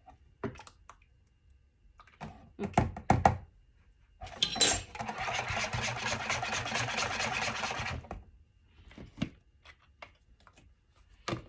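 Wire whisk beating a liquid mixture in a plastic bowl: a fast, steady run of strokes for about four seconds in the middle. Before it come a few clinks and knocks, and after it scattered light clicks.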